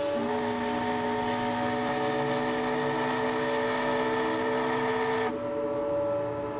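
River steamboat's steam whistle blowing one long, steady chord that cuts off suddenly about five seconds in, over a fainter held tone.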